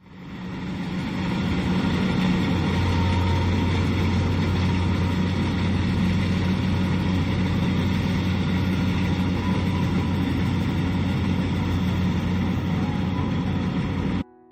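Kubota DC-70 combine harvester's diesel engine running steadily, a constant low hum over machine noise. It fades in over the first couple of seconds and cuts off abruptly just before the end.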